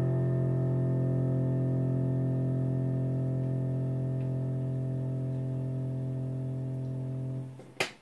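The final chord of the song held on an electronic keyboard, ringing steadily and fading slowly, then stopping about seven and a half seconds in. A sharp click follows near the end.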